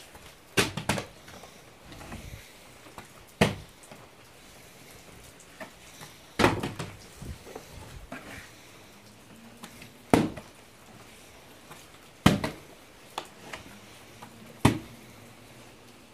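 Plastic water bottle flipped and landing on a hard floor, again and again: six loud knocks a few seconds apart, several followed by a quick second knock as it bounces or tips over.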